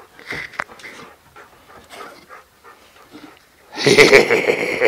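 A dog panting hard and fast, starting loud about three-quarters of the way in, after a few faint small sounds.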